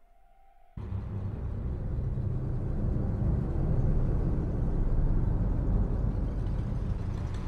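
Low, rough rumbling drone that cuts in abruptly about a second in and then holds steady.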